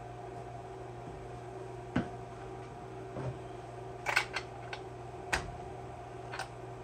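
Scattered clicks and light knocks of a hand tool and fingers working in the top of a chainsaw's plastic housing, about eight in all, several in a quick cluster about four seconds in, over a steady hum.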